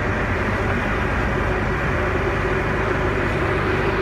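A yacht's engine running steadily under way: a constant drone with a steady pitched hum and no change in speed or pitch.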